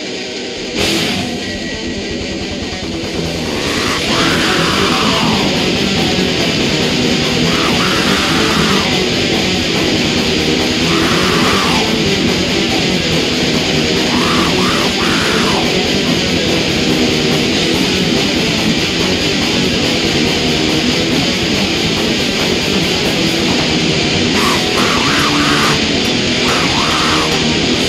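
Heavy metal music with dense, distorted electric guitars. A sharp hit comes just under a second in, and the music grows fuller and louder about three to four seconds in.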